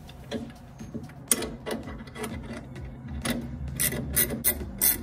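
Small metal parts clicking and scraping as a bolt and nut are fitted by hand through a steering cable eyelet on a jet pump nozzle linkage. The clicks are irregular and come more often toward the end.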